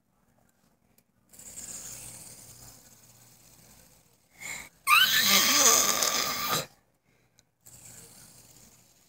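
A boy making silly raspy throat and mouth noises with a finger in his mouth. A long breathy rasp is followed, about five seconds in, by a louder, harsher squeal that rises in pitch, and a shorter rasp near the end.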